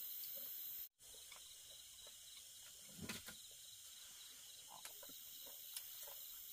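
Faint steady chirping of night insects, with a few soft clicks and knocks of chopsticks and bowls at the meal. The sound drops out completely for a moment about a second in.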